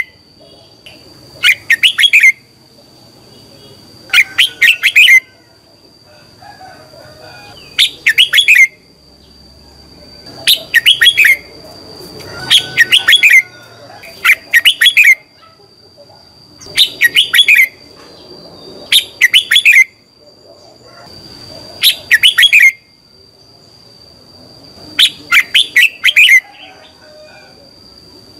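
Red-whiskered bulbul singing: short bright phrases of rapid falling notes, each about a second long, repeated every two to three seconds. A thin steady high whine runs underneath.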